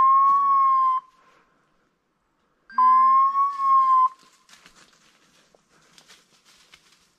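Two long, steady high tones, each about a second and a half long, the second starting about three seconds after the first: a signal used in handling a hunting dog in cover. Faint rustling of brush between and after them.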